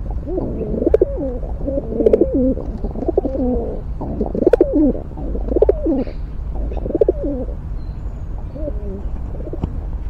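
Rock pigeon cooing close by: a run of low, wavering coos, one after another for about seven seconds, with two fainter ones near the end. A few sharp taps fall among them.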